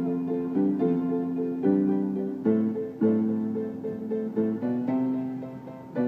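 Upright piano being played: a string of chords, each struck and left to ring and fade before the next.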